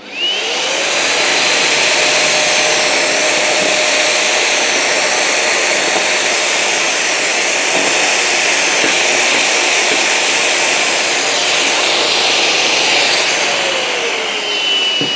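Festool dust extractor spinning up with a rising whine, then running steadily and sucking waste through the hose. Meanwhile a cordless drill bores a 20 mm hole in MDF with a pecking motion. Near the end the extractor winds down with a falling whine.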